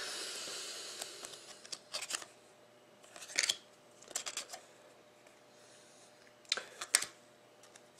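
Stiff foil-finish trading cards being slid off one another in the hand, giving a few short dry clicks and scrapes. A fading rustle sounds at the start.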